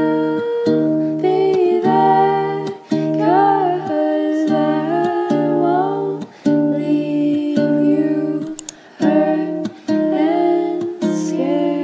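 Background music: a soft song of plucked chords with a melody line over them.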